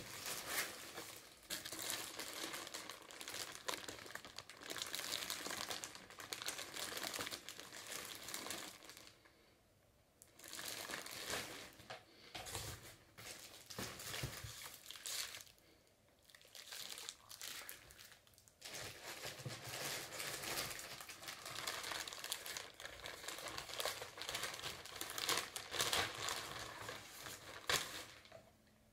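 Packaging crinkling and rustling as a cardboard box is unpacked by hand, in spells with a few short pauses.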